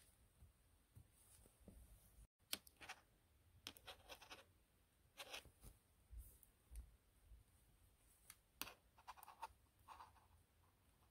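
Faint, irregular clicks and scratches of wooden knitting needles tapping and sliding against each other and the yarn as stitches are bound off.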